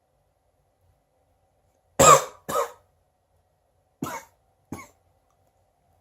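A man coughing: four short coughs in two pairs about two seconds apart, the first the loudest.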